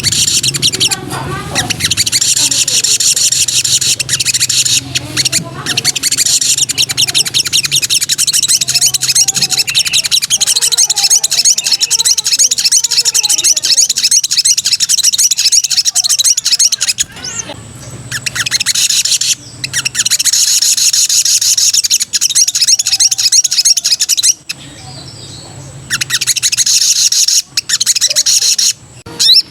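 A sogon (sogok ontong) songbird singing in full voice: long runs of rapid, high chattering trills, broken by a few short pauses.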